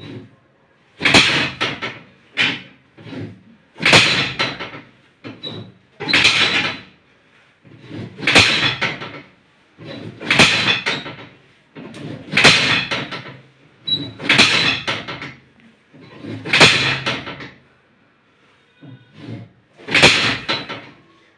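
Hands-on chiropractic treatment of a patient lying face down: about ten short, loud, noisy strokes, roughly one every two seconds, with a longer gap near the end.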